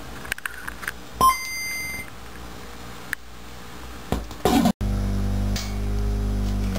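Button clicks, then a two-note electronic chime about a second in: a short low beep and then a higher beep held for under a second, the startup chime of an original Nintendo Game Boy. After a brief noisy swell and a sudden cut, a low, steady musical loop starts playing near the end.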